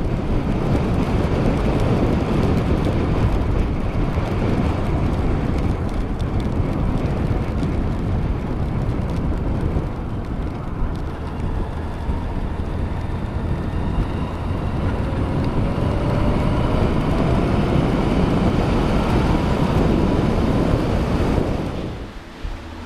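Motorcycle on the move: steady wind rush and road noise over the engine, with a faint whine rising slowly through the middle. The noise falls away just before the end.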